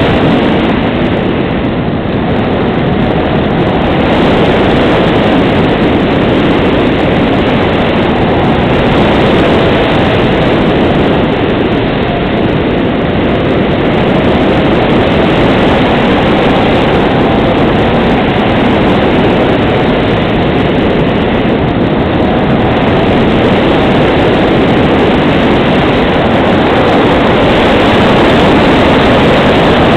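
Wind rushing over the microphone of a camera mounted on a Grunau Baby glider in flight: a loud, steady rushing noise with no clear engine tone, dipping slightly about two seconds in.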